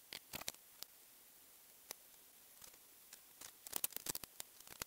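Faint clicks and taps of a circuit board and soldering iron being handled on a bench mat. There are a few near the start, then a rapid flurry in the last second and a half as the board is picked up.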